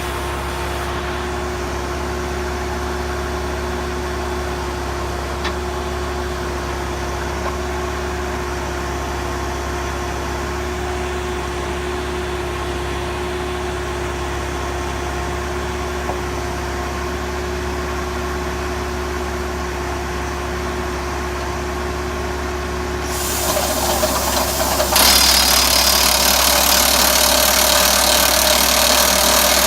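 Diesel engine of an Atlas Copco Flexiroc rock drill rig idling steadily with a constant hum. About 23 seconds in, a much louder hissing, rattling noise builds up over a couple of seconds and then carries on steadily, as the rig starts working.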